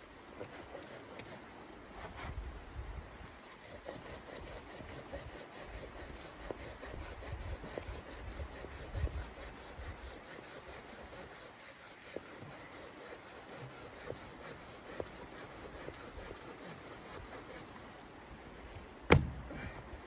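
Folding hand saw cutting through a wooden branch in repeated back-and-forth strokes, the blade rasping against the wood. Near the end there is one sharp crack, the loudest sound here.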